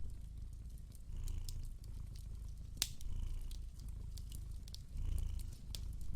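A cat purring in slow swells, under the small crackles and pops of a wood fire, one sharper pop about three seconds in.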